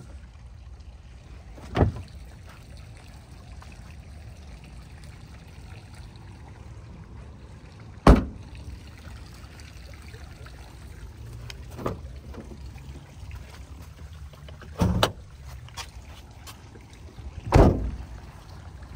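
A car's trunk lid slamming shut about eight seconds in, with a few other knocks and bumps before and after it, over a steady low rumble.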